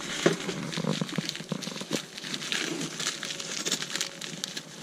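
Gloved hands rummaging through a bin of wire and tools, crinkling a paper packet, with scattered sharp clicks and clinks of the gear.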